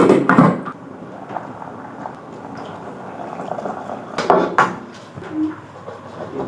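Kitchen clatter: cookware and utensils knocking in two short clusters, one at the very start and one about four seconds in, over a steady background hiss.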